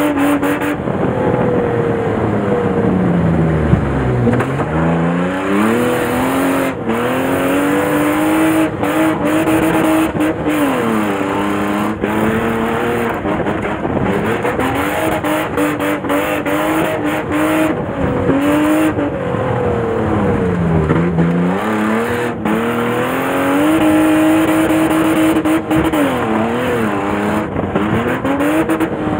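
Rear-wheel-drive stock car's engine heard from inside the cabin, revving hard on a dirt track. The revs fall steeply and climb again twice, about 4 and 21 seconds in, with shorter dips between. Frequent knocks and rattles come from the car's bodyshell.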